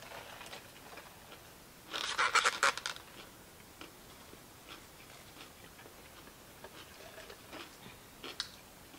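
Quiet eating at a table: faint chewing and scattered small clicks. About two seconds in comes a louder crackling rustle lasting about a second, from handling food or its packaging.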